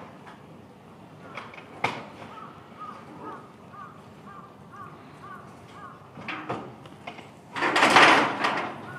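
Animal calls: short high calls repeating about twice a second, a sharp click about two seconds in, and a loud, harsh call near the end, which is the loudest sound.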